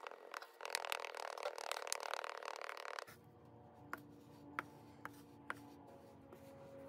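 Metal bar scraping across packed casting sand in a wooden flask, striking off the excess, a dense gritty scrape with clicks for about three seconds. It then stops abruptly, leaving a few light ticks over a faint steady hum.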